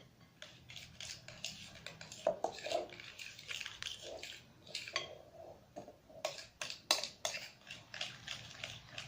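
A utensil stirring slime in a container, with irregular clicks and scrapes against the container as the glue mixture is activated with boric-acid water.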